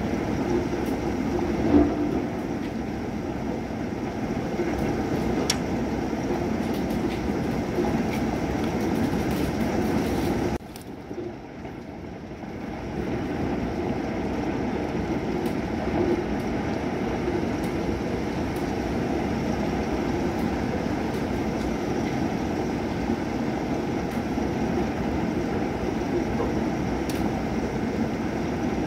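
Thunderstorm: rain falling steadily, with a continuous low rumble under it and a few sharp ticks. There is a brief louder knock about two seconds in. The sound drops away abruptly about ten seconds in and builds back up over the next two to three seconds.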